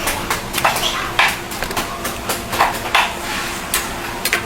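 Knife work on a bigeye tuna: a run of irregular sharp knocks and clicks, about two or three a second, as the blade strikes the cutting board.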